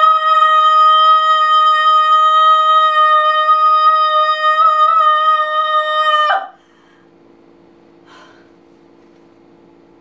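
A woman's long shout through cupped hands, held on one high, steady pitch and cut off sharply about six seconds in. After it there is only a faint steady hum.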